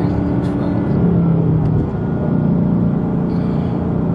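Ford Mustang GT's V8 engine running at low speed in traffic, heard as a steady low drone that shifts slightly in pitch about two seconds in.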